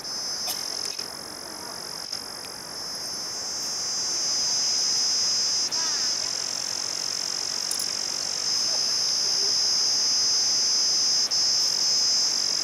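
Steady high-pitched chorus of night insects such as crickets, growing louder about three seconds in, with two brief dropouts.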